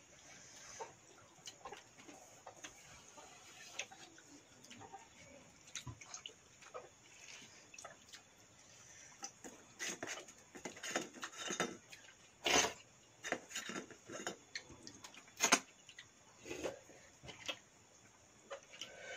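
Eating sounds from people eating pakhala (soaked rice) by hand from steel bowls: wet mouth smacks and chewing, with fingers scraping and tapping the steel bowls. The short clicks get busier about halfway through, with two louder sharp ones a few seconds apart.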